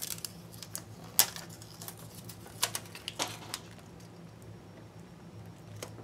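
A strip of foil duct tape being handled and pressed onto a book page: scattered crinkles and sharp clicks, the loudest about a second in, with a small cluster around the middle.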